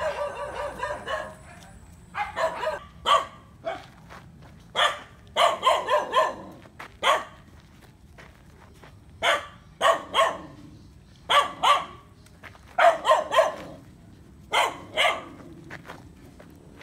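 A dog barking repeatedly, loud short barks in groups of one to three, every second or two.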